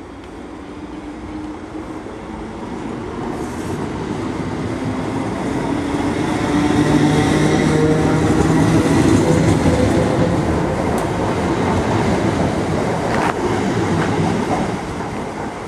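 Class 321 electric multiple unit running in alongside the platform and passing close by, with a steady motor hum over the rumble of its wheels. It grows louder to a peak about halfway through, then eases off, with a sharp clack near the end.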